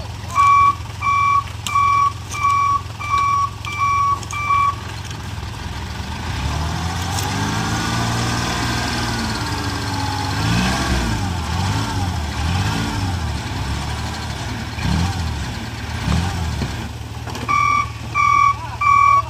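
Small dump truck's engine idling while its warning beeper sounds in short, evenly spaced beeps, about one and a half a second. Then the engine is revved up and down for about ten seconds as the hydraulic hoist raises the loaded tipper bed, and the beeping starts again near the end.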